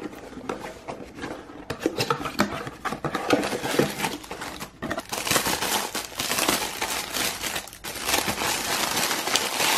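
Clear plastic bag crinkling and rustling as it is handled and unfolded, with cardboard packaging being opened. The crinkling grows louder and denser about halfway through.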